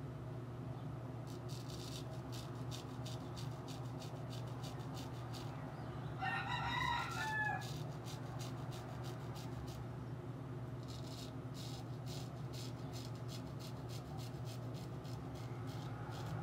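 A rooster crows once, about six seconds in, for about a second and a half. Before and after it, a straight razor scrapes through stubble in quick, short crackling strokes.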